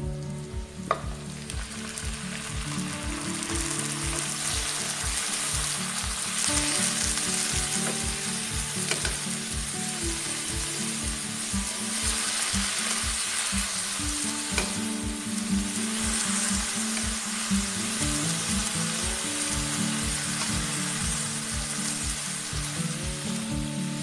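Bean sprouts and carrot strips stir-frying in oil in a wok: a steady sizzle, growing louder over the first few seconds, as a spatula stirs and scrapes through the vegetables.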